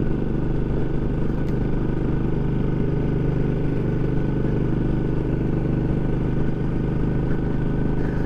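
Suzuki C50 cruiser's V-twin engine running steadily at cruising speed.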